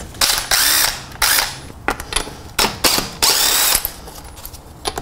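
Cordless impact wrench spinning off loosened wheel lug nuts in a series of short stop-start bursts, the motor pitch rising and falling with each trigger pull.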